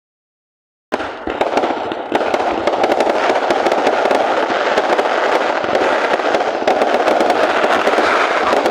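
Fireworks and firecrackers going off in a dense barrage starting about a second in: a continuous crackle packed with many sharp pops and cracks, with little deep boom.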